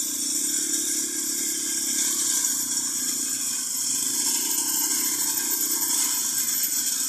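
Small petrol engines of a walk-behind tracked brush cutter running steadily while it cuts through ferns and grass, a constant drone with a strong hiss.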